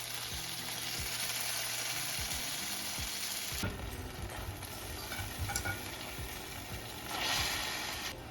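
Food sizzling in a hot frying pan as it is cooked, with light clicks of a utensil against the pan. The sizzle is loud for the first three and a half seconds, drops off, then swells briefly near the end.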